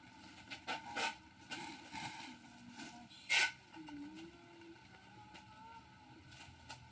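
Scattered rustles and light knocks of items being handled, with one louder rustle about three and a half seconds in, over faint background noise.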